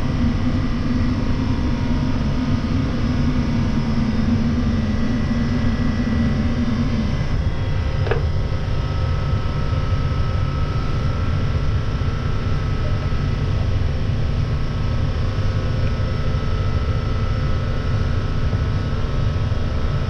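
Loud, steady drone of shipboard machinery around the air-conditioning compressor and refrigerant vacuum pump. A low hum drops out about seven seconds in, and a click about a second later is followed by a steady higher whine.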